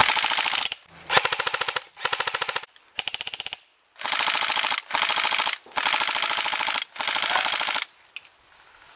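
Airsoft AK-pattern rifle firing on full auto: about eight short bursts of rapid clicking shots, each under a second long, with brief gaps between them.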